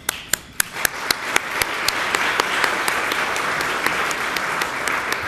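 Audience applauding: a few loud, separate claps close by at first, then the clapping of many hands builds to a steady, dense applause and begins to thin out near the end.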